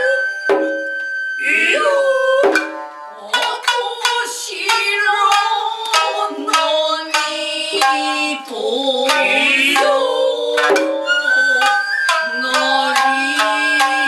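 Japanese nagauta ensemble playing: shamisen plucking a melody over sharp strikes of the shime-daiko stick drum and the tsuzumi hand drums, while a shinobue bamboo flute holds long high notes and slides upward about eleven seconds in.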